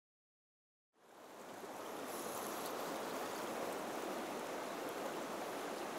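Rushing water of a shallow, fast-flowing river running over stones, a steady rush that fades in from silence about a second in.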